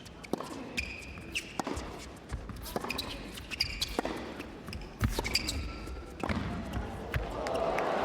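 Tennis rally on an indoor court: sharp racket strikes and ball bounces about once a second, with short high shoe squeaks. Crowd noise begins to rise near the end.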